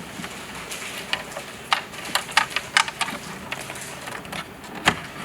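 A quick run of sharp plastic clicks and taps about one to three seconds in, with one more sharp click near the end, from hands working car interior trim panels and wiring.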